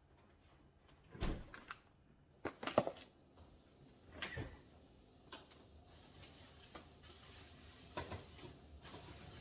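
Refrigerator door thuds shut about a second in, followed by a few sharp knocks and clatters, loudest around three seconds in; near the end the door is pulled open again.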